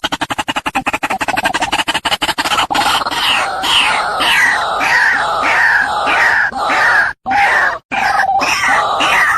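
White-breasted waterhen calling: a fast rattling run of croaking pulses, then a string of loud repeated notes, about two or three a second, each sliding down in pitch.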